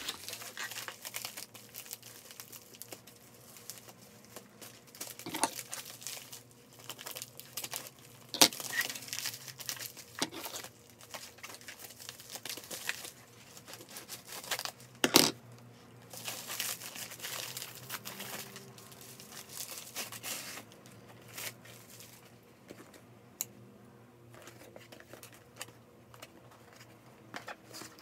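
A plastic shipping mailer crinkling and tearing as it is ripped open by hand, with a few sharp rips, the loudest about fifteen seconds in.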